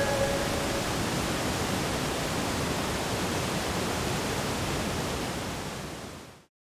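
Steady rushing of a fast-flowing mountain stream, an even wash of water noise that fades out about six seconds in.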